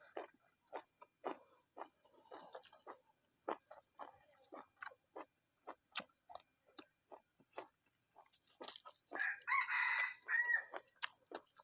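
Close-up mouth noises of someone eating: scattered short wet clicks and smacks of chewing. A rooster crows once about nine seconds in, the loudest sound here.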